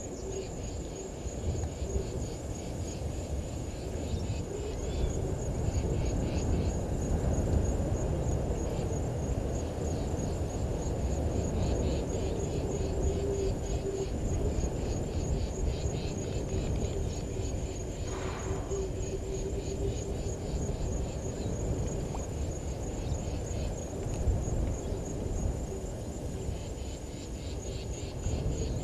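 Crickets trilling steadily in the bush, a high continuous pulsing chirr, over a low steady rumble. One short call cuts through briefly about 18 seconds in.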